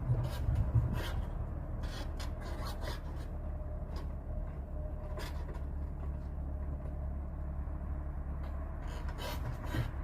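An engine runs with a steady low hum, with scattered light clicks and scrapes over it.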